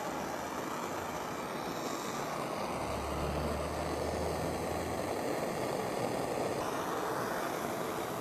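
Hand-held propane torch burning with a steady hiss while its flame heats a steel putty knife blade.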